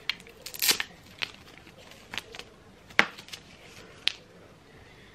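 Handling noise from a new 2-in-1 hair straightener and curler: light plastic clicks and rattles as its plates are opened and closed, with rustling. The sharpest click comes about three seconds in, another about a second later.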